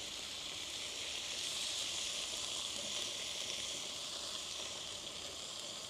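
Chicken, mushrooms, peppers and onions in curry sauce sizzling steadily on a hot griddle plate.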